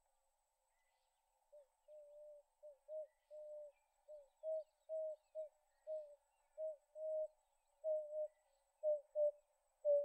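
Emerald-spotted wood dove calling: a series of low, soft coos begins about a second and a half in, some short and some drawn out, growing louder and coming faster toward the end as the call builds.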